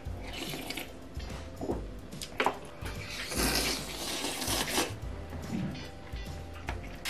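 Slurping food off a wooden spoon, one long slurp lasting nearly two seconds about three seconds in, with shorter slurps near the start and end. Faint background music underneath.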